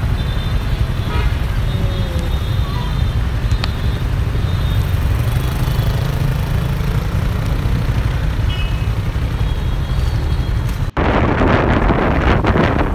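Busy city street traffic heard from a moving vehicle: a steady low rumble of motorbike and car engines and road noise. About eleven seconds in the sound cuts briefly, then wind buffets the microphone.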